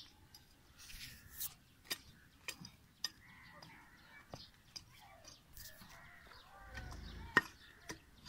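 Small hand hoe working dry, stony garden soil: irregular sharp clicks and knocks as the blade strikes earth and pebbles, with faint bird chirps in the background.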